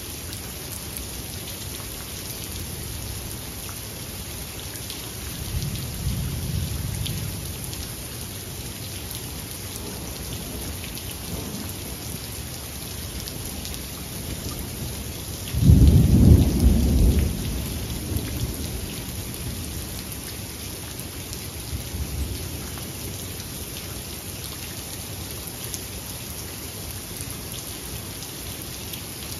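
Steady rain falling through a thunderstorm, with thunder: a low rumble about six seconds in, a loud sudden clap about sixteen seconds in that rolls on for about two seconds, and a fainter rumble a few seconds later.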